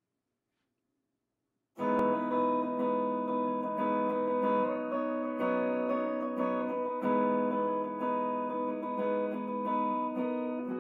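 Gibson Les Paul electric guitar played with a pick, single notes and chords ringing into each other. It starts suddenly about two seconds in.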